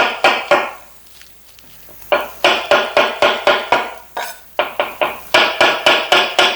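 Kitchen knife slicing mushrooms on a chopping board, in quick even strokes of about four a second, with a pause of about a second and a half near the start.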